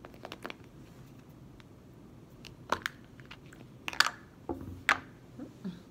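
Hard plastic toy container being handled and pulled apart, giving a scatter of sharp plastic clicks and clacks. The loudest click comes about four seconds in, followed by a few softer knocks on the table.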